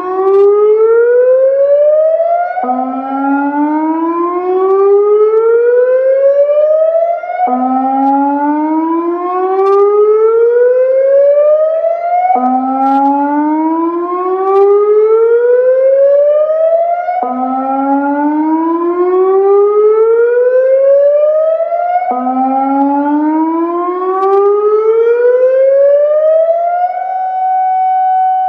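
Federal Signal Modulator 6024 electronic siren sounding the Severnside warning tone. It is a slow rising whoop that climbs for about five seconds, snaps back low and repeats, six times over. Near the end it holds a steady high note.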